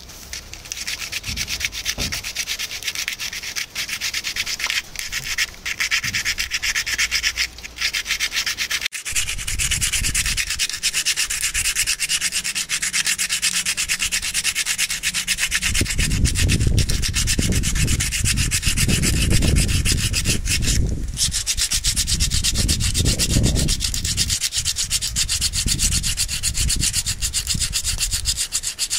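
Sandpaper rubbing rapidly back and forth on a hand-carved spoon of dried lapsi wood, a continuous scratchy rasp of quick strokes that pauses briefly twice.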